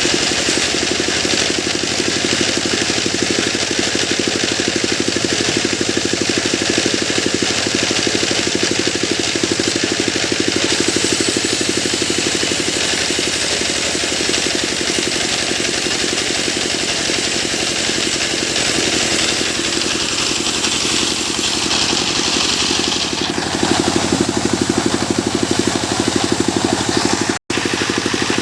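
Engine of a sawmill machine running steadily. Its tone shifts a few seconds before the end, and the sound cuts out for an instant near the end.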